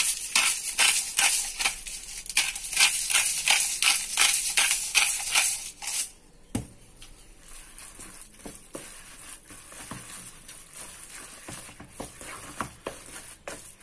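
Wooden spoon stirring a thick ricotta and spinach mixture in a plastic bowl: repeated scraping strokes, about three a second, loud for the first six seconds and then softer and more scattered. A single sharp click about six and a half seconds in.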